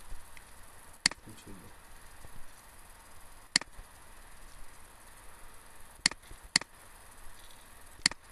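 Computer mouse button clicking: five short, sharp clicks spread out, two of them close together a little past halfway.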